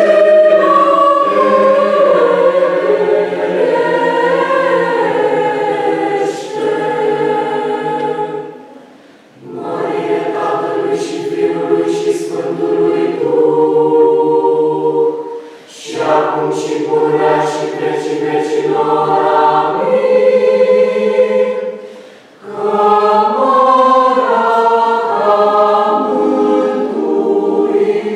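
Mixed choir of teenage girls and boys singing in parts, unaccompanied, in held chords. The singing falls in phrases, with brief pauses about 9, 16 and 22 seconds in.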